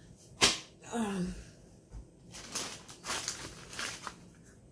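Paper scraps being handled: a sharp tap on the desk about half a second in, then several short paper rustles.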